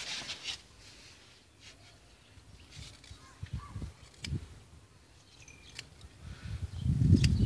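Small scissors snipping hair close to the ear: a few short, sharp snips scattered through otherwise quiet room sound. A louder low thump comes near the end.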